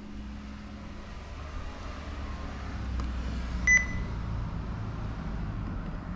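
A steady low hum with one short, high electronic beep a little past halfway, the kind a household appliance gives when it takes a button press.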